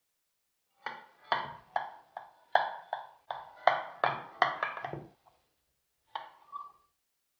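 Metal knife cutting baked köfte in a glass baking dish, the blade knocking against the glass bottom about a dozen times in quick succession, then twice more near the end.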